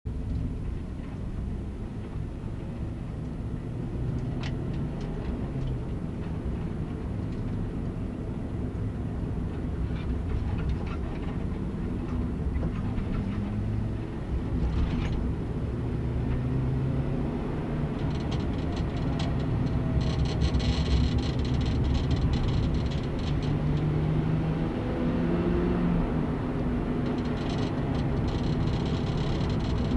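Honda Civic Type R EP3's 2.0-litre four-cylinder engine heard from inside the cabin, pulling hard as the car accelerates onto the circuit. Its pitch climbs and drops back at each gear change. A light rattling joins in from about 18 seconds in.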